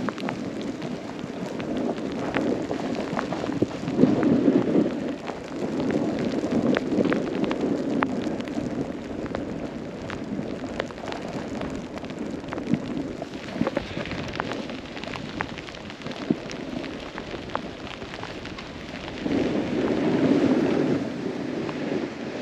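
Snowboard sliding and carving down a snowy run, a steady rush of board on snow that swells in several places, with wind buffeting the microphone and scattered sharp ticks.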